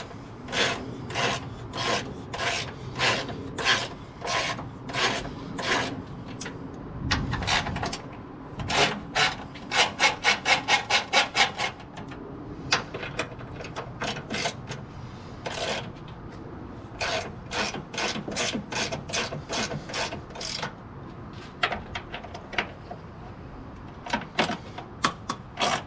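Hand ratchet wrench clicking in runs of back-and-forth strokes as it loosens bolts, with short pauses between runs. The clicks come about two a second at first and speed up to a quick run about ten seconds in.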